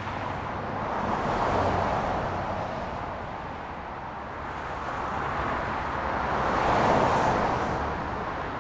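Road traffic: passing cars whose tyre and engine noise swells twice, about a second and a half in and again near seven seconds, fading away after each.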